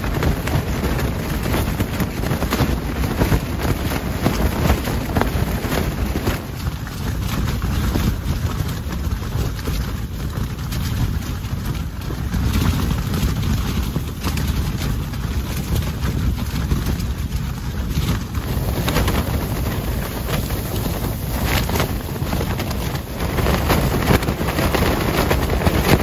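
Storm wind gusting hard against a tent, heard from inside, the fabric walls shaking and flapping continuously, with wind rumbling on the microphone. It is blowing like crazy.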